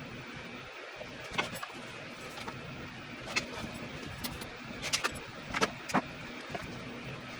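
Handwork on a leather ball glove during relacing: a scattered run of short, sharp clicks and taps, several of them close together about five to six seconds in, over a steady low background hum.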